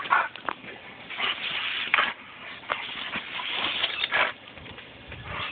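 A German Shepherd biting at the spray from a garden hose nozzle: hissing, splashing water that swells and fades, broken by sharp snaps and a few short dog sounds.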